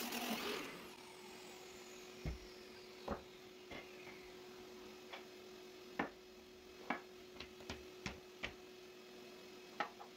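Table saw noise stops about half a second in, and the blade spins down with a faint falling whine. Then come about ten light, sharp wooden knocks as cut blocks are handled and set down on the saw table, over a steady faint hum.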